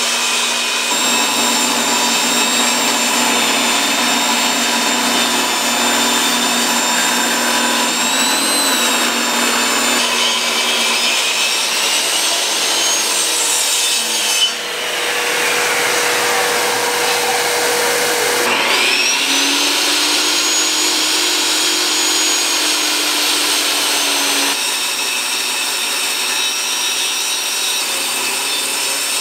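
Table saw running and ripping alder boards, a steady motor and blade whine with the rasp of the cut. A little past halfway the blade coasts down with a falling whine. Then the motor starts up again with a rising whine and settles to a steady run.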